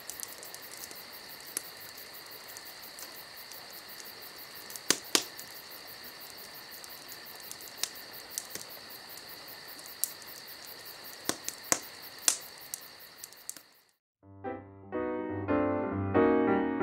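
A campfire crackling, with scattered sharp pops over a steady high hiss. Piano music comes in near the end.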